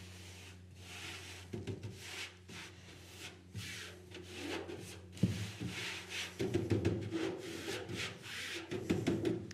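Hand rubbing a pyrotechnic powder through a fine brass-mesh sieve in a wooden frame: irregular dry swishing strokes, with a knock about five seconds in. The rubbing breaks up small clumped lumps so the Bengal-fire composition comes out even.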